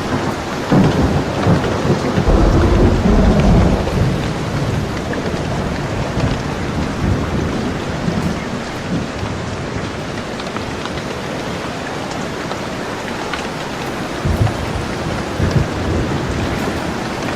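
Steady rain falling, with rolling thunder: a long low rumble swells about a second in and lasts about three seconds, and a shorter rumble with a couple of sharp cracks comes near the end.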